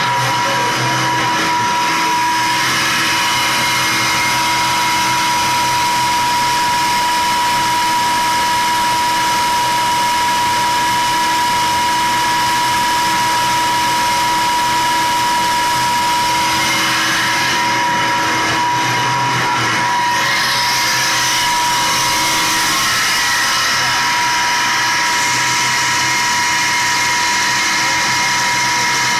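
18.5 kW five-disc Tesla (disc) sand pump and its electric drive motor running steadily at about 2,880 rpm, a loud even machine whine with a steady high tone.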